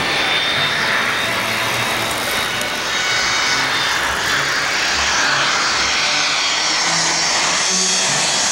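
McDonnell Douglas MD-80 airliner on final approach with gear down, its rear-mounted JT8D jet engines giving a steady jet roar that grows sharper as the plane closes in toward the end.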